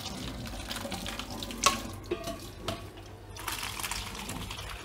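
Boiled pasta and its cooking water poured from a steel pot into a plastic colander in a steel sink: steady splashing of running water, with a few sharp knocks in the middle as the pot is tipped.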